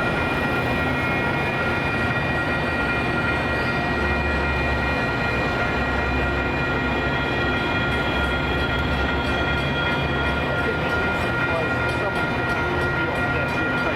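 Train rolling past a railroad grade crossing, a low rumble swelling in several spells over a steady noise, with steady high ringing tones from the active crossing throughout.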